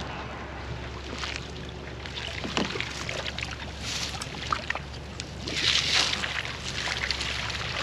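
A 12-and-a-half-foot cast net being hauled up hand over hand, water splashing and streaming off the mesh, loudest about six seconds in as the net comes up out of the water.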